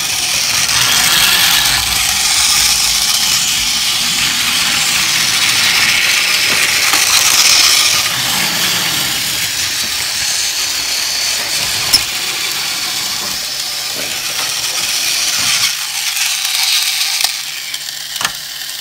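Battery-powered Tomy toy Thomas engine and Bulgy bus running, their small motors and plastic gears giving a steady high whirring hiss, with a couple of sharp clicks.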